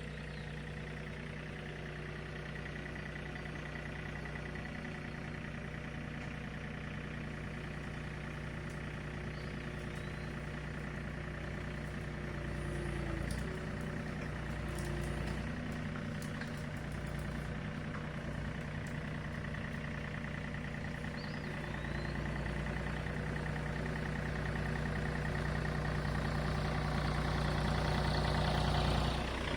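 John Deere 3025E compact tractor's three-cylinder diesel engine running steadily. It changes briefly near the middle and grows louder toward the end.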